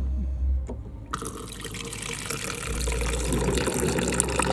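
Water dispenser's cold tap pouring water into a plastic shaker bottle: after a faint click, the stream starts about a second in and runs steadily as the bottle fills.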